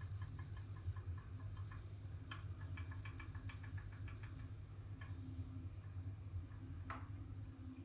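Flip clock's mechanism ticking quickly, about five small ticks a second in short runs broken by pauses, then one sharp, louder click near the end. This is the noise the clock makes while no digit flips.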